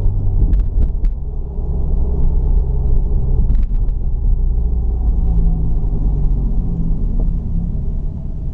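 Inside the cabin of a 2017 Subaru WRX on the move: its turbocharged flat-four engine and road noise make a steady low rumble. A few short clicks come about half a second to a second in, and one more about three and a half seconds in.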